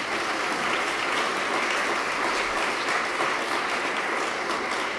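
Audience applauding steadily: a roomful of people clapping at the close of a talk.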